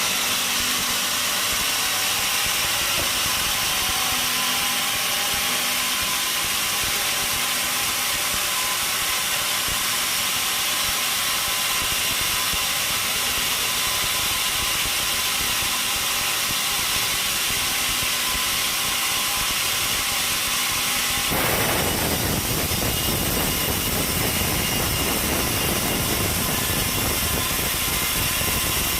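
Sawmill machinery running with a loud, steady mechanical noise. About 21 seconds in, the sound changes abruptly and a deep rumble joins it.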